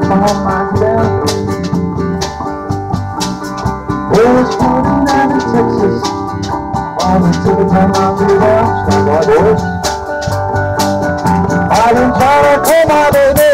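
Live band playing a song: drum kit with crash cymbals keeping time, electric bass carrying the low notes, and a man singing the melody over them.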